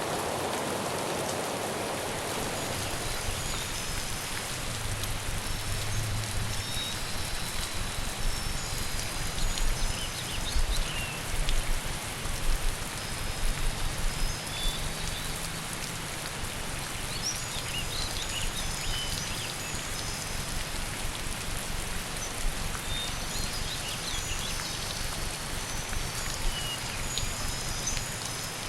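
Steady rain pattering on surfaces, swelling louder in gusts through the middle, with a low rumble underneath. Faint high chirps come and go above it.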